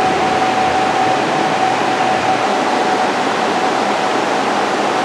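Steady rushing air noise with a constant mid-pitched hum running through it, typical of a large ventilation or air-conditioning unit running.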